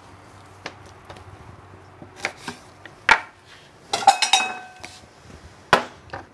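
Kitchen knife on a wooden cutting board while the wings are cut off a whole raw chicken: a few scattered knocks, the loudest about four seconds in with a short metallic ring.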